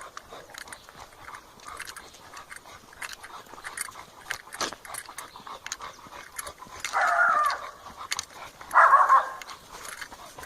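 English bulldog making two loud, short, noisy sounds about seven and nine seconds in, over a run of light clicks and scuffles.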